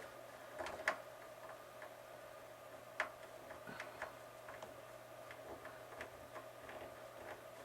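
Irregular small clicks and taps of hand work on a model airplane's landing gear, likely a screwdriver tightening screws, with two sharper clicks about one and three seconds in, over a steady faint hum.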